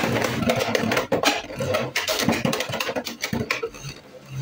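Beyblade X spinning top skidding and rattling around a plastic stadium bowl just after launch, with rapid irregular clicks and scrapes. The clicks thin out and fade near the end as the top slows and settles.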